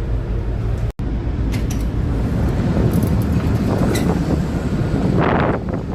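Steady low rumble with wind noise on the microphone, broken by a brief dropout to silence about a second in.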